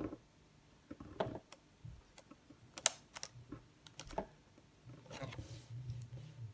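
Irregular small clicks and taps of small hard parts being handled and set down on a tabletop, with a short rustle about five seconds in.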